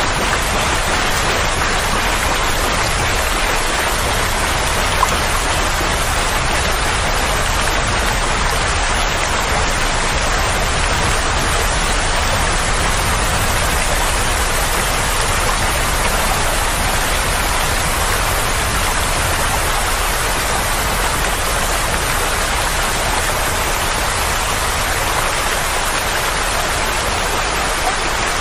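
Steady, even rushing noise of rain, played as a soothing sleep sound for a colicky baby. One faint click about five seconds in.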